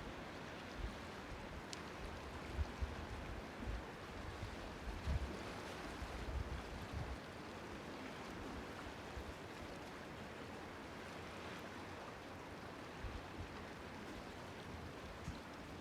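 Seawater washing and lapping in a small harbour, a steady soft rushing. Irregular low buffets of wind on the microphone come and go, mostly in the first half.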